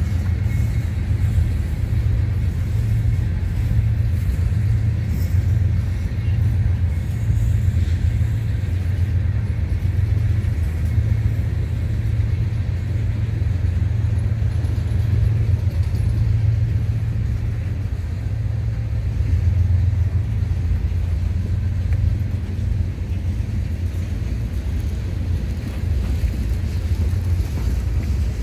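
Freight train of hopper and tank cars rolling past: a steady low rumble of wheels on the rails.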